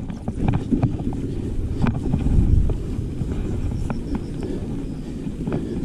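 Mountain bike being ridden over a rough, muddy trail: wind buffeting the microphone over a low rumble of tyres and drivetrain, with scattered knocks and rattles, a little louder about two seconds in. The chain is running dry; the rider says it needs oil.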